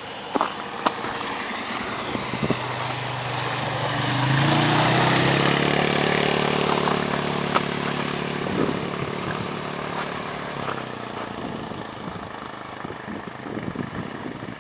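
A motor vehicle passes: its engine hum and road noise build over the first few seconds, are loudest about four to six seconds in, and then fade away.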